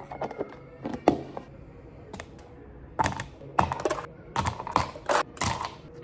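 Ice cubes being knocked out of a plastic ice tray and dropped into a plastic cup: a quick run of sharp clacks and knocks through the second half, after a few lighter clicks in the first second.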